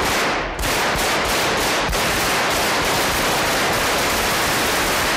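Bursts of automatic gunfire inside the Spanish Congress chamber, from Guardia Civil weapons fired during the 23-F coup assault. A few separate shots quickly run together into a continuous rattle, with heavy echo from the hall.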